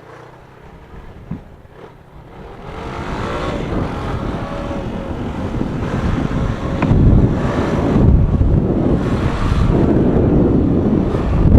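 Motorcycle under way, its engine pulling in a low gear while wind buffets the microphone; the sound swells from about two and a half seconds in and is loudest in the second half. The owner says the engine makes a scraping noise in first and second gear.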